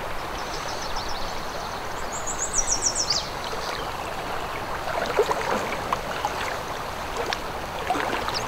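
Steady rush of flowing river water, with a small bird singing a quick run of high notes that falls in pitch about two seconds in. A few louder splashy sounds of water come about five seconds in.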